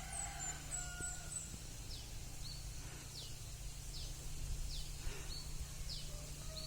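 Birds calling: a few quick high chirps, then short falling whistled notes about once a second, over a steady low hum.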